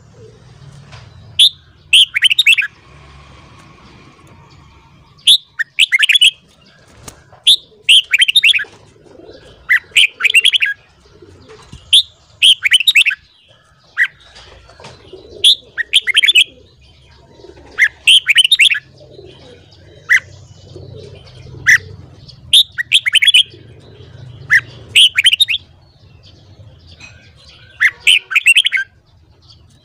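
Red-whiskered bulbul singing: short loud phrases, each a sharp high note followed by a quick run of chattering notes, repeated about every two seconds.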